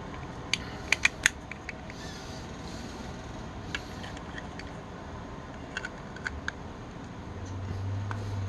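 Sharp plastic clicks and taps from handling a battery-powered LED tap light and its mount: a quick cluster of clicks about a second in, then a few scattered clicks. A low steady hum comes in near the end.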